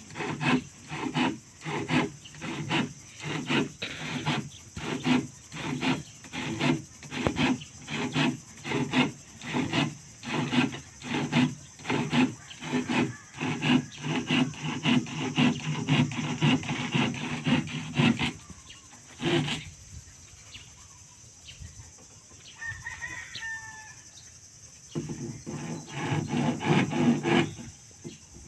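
Rhythmic back-and-forth rasping strokes of a hand tool on wood, about two a second, like sawing or filing. The strokes stop about two-thirds of the way through and start again near the end.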